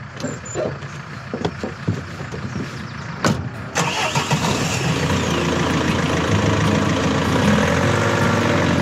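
Handling knocks as someone gets into a van, the driver's door shutting about three seconds in, then the van's engine starting and settling into a steady idle.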